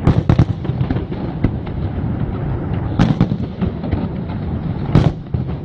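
Fireworks going off: a quick run of sharp bangs at the start, then single big bangs about three and five seconds in, over a continuous rumble of smaller cracks.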